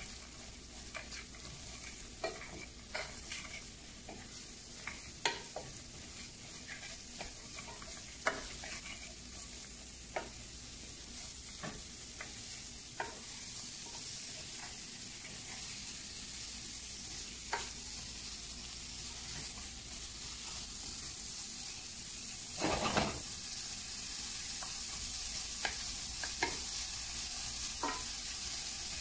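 Kohlrabi and shallots sautéing in butter in a pan, sizzling steadily, with scattered clicks of a utensil against the pan as they are stirred. One louder stir comes about three quarters of the way through.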